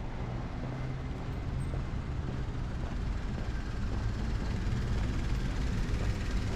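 City street traffic: a steady low rumble of vehicles.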